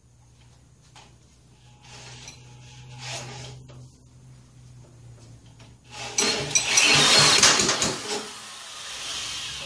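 Corded drill spinning over a 1959 Mitsubishi Silver Pigeon's 125cc four-stroke engine by its crank to start it after a shot of ether. Quieter rattling at first, then a loud clattering burst of about two seconds from about six seconds in, fading near the end.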